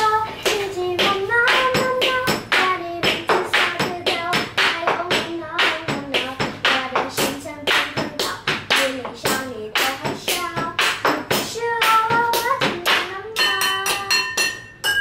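Children singing a Vietnamese children's song in a clear melody, with a steady beat of taps or claps, about three a second.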